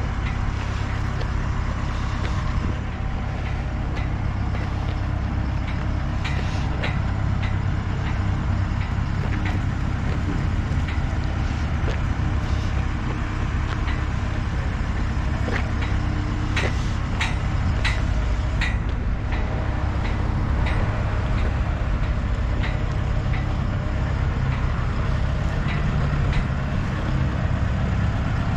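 Boom truck's engine running steadily under load while it lifts, with scattered short metallic clicks and knocks, several close together about two-thirds of the way through.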